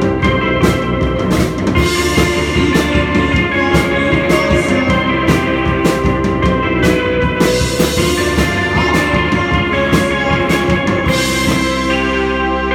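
A live band playing an instrumental passage, with a drum kit hitting steadily over sustained chords. About eleven seconds in, the drums stop, leaving only the held chords ringing.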